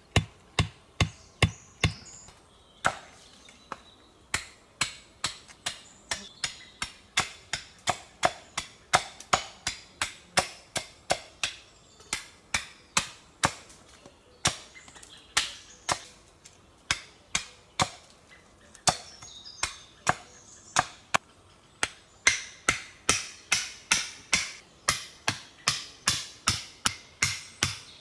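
Repeated hammer blows driving stakes into the ground, about two sharp strikes a second, quickening to about three a second near the end, with a few short pauses.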